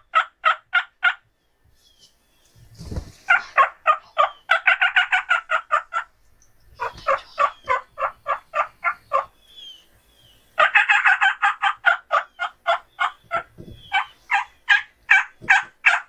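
Turkey yelping: loud notes repeated in series of about three to four a second, breaking into faster runs twice. There are pauses between the series, and a low thump comes twice.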